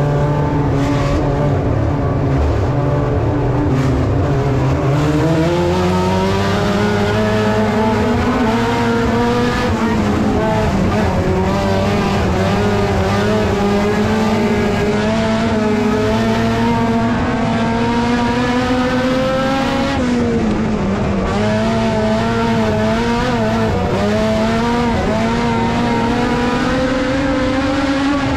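Front-wheel-drive dirt-track race car's engine heard from inside the cockpit, its pitch climbing between about four and eight seconds in, then holding, easing off briefly around twenty seconds in and picking up again.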